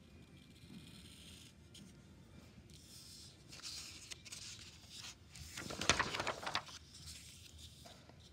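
Sheets of paper rustling and sliding as worksheet pages are shifted and turned over, with the loudest rustle about six seconds in.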